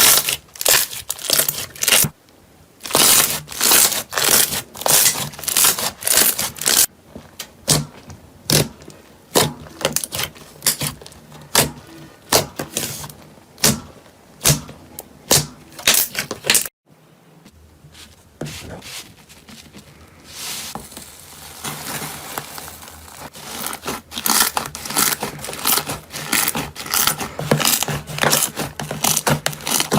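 Slime being squeezed and pressed by hand, giving a rapid run of sharp pops and clicks. About seventeen seconds in it breaks off for a moment, and a second batch follows with denser, finer clicking.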